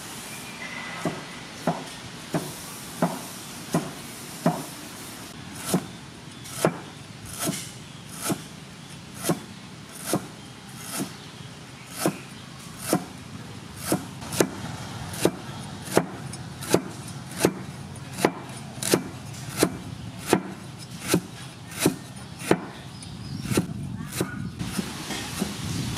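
A cleaver slicing a lemongrass stalk into thin rings, knocking on a thick wooden chopping block in a steady rhythm of about one and a half cuts a second. Near the end the cuts come quicker and lighter.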